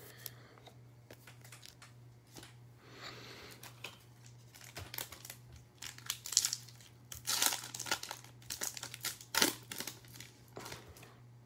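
Foil wrapper of a Topps Chrome baseball card pack crinkling as it is handled and torn open, the crackling louder and denser in the second half. A faint steady low hum runs underneath.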